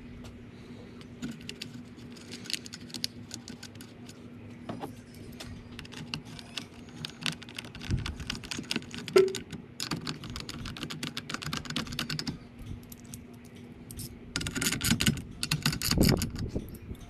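A socket ratchet clicking in short runs as it drives the screws that hold the fan control module onto the radiator fan assembly, ending in a fast, louder run of clicks near the end.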